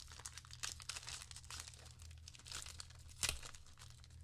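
Wrapper of a trading-card pack being torn open and crinkled by hand, an irregular run of crackles with one sharp, loud crinkle about three seconds in.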